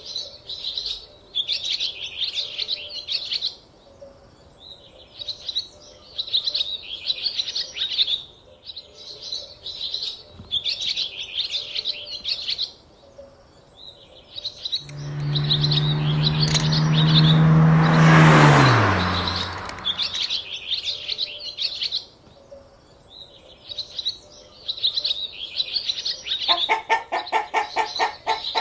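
Bird chirping in repeated short bursts of high tweets, with pauses between them. In the middle a loud low drone with a swelling hiss runs for several seconds and drops in pitch as it fades, and hen clucking starts near the end.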